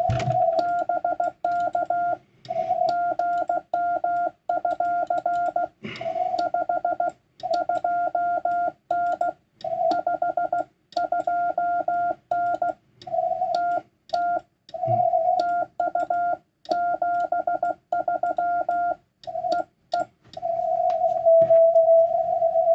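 Morse code (CW) tones from a Yaesu FTDX10 transceiver: a single steady-pitched tone keyed in quick dots and dashes with short pauses between characters and words, part of a contact with a Summits On The Air station. Near the end the tone stops keying and holds unbroken.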